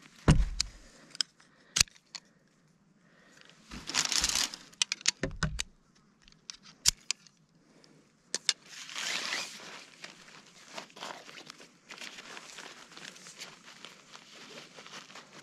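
Hammock gear being handled and unpacked: fabric and straps rustling and crinkling, with scattered sharp clicks and a longer rustle a little past the middle.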